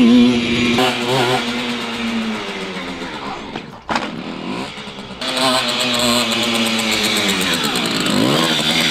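Motocross bike engine revving up and down as it is ridden, with a brief drop in the sound about four seconds in and another rising rev near the end.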